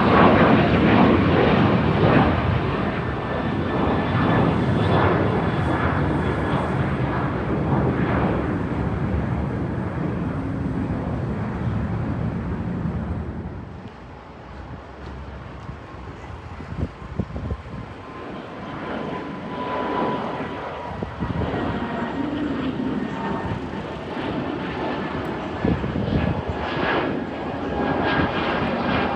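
Jet airliner engines running loud as an aircraft passes, a dense roar with a thin whine that slowly falls in pitch. The roar eases about halfway through, then builds again.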